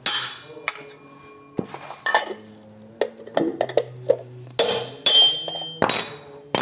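Metal tools and small metal parts clinking and knocking together as they are handled and set down: about a dozen sharp, ringing clinks at irregular intervals.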